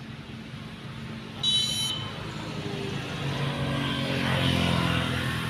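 A road vehicle passing by, its engine noise swelling over the last couple of seconds and then easing off. About a second and a half in, a brief, shrill high-pitched sound.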